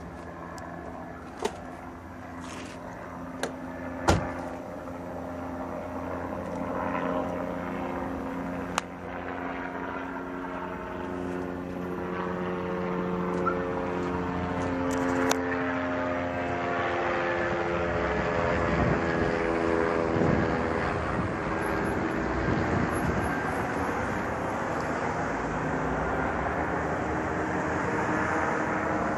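Police helicopter flying overhead, its engine and rotor sound getting louder, with its pitch sliding as it passes around the middle. A few sharp clicks come in the first several seconds.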